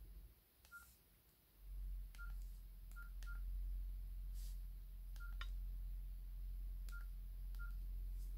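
Nokia 6700 Slide keypad tones: seven short electronic beeps at one pitch, one for each press of the navigation key as the menus are scrolled, each with a faint key click, over a low hum.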